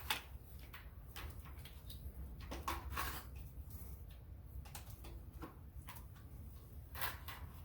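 Scattered knocks and clicks of wooden boards and a clamp being handled as the boards are clamped together, over a low hum.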